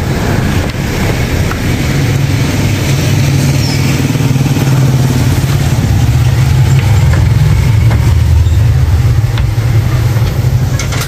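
A motor vehicle's engine running close by on the street as a low rumble, growing louder through the middle and easing near the end.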